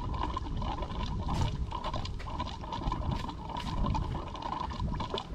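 Key-on fuel pump of a Ford 6.0 PowerStroke diesel running with a steady whine and a gurgling noise as it draws air rather than diesel: the tank is empty.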